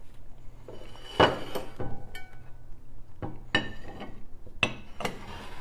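A handful of light clinks and knocks of tableware, some with a short ring, like a cup or cutlery touching a plate; the sharpest comes about a second in.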